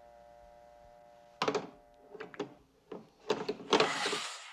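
Steady telephone line tone over an old rotary payphone after the other end has hung up, which stops about two and a half seconds in. Sharp clicks and knocks start about a second and a half in, and a louder noisy clatter near the end, then the sound cuts off suddenly.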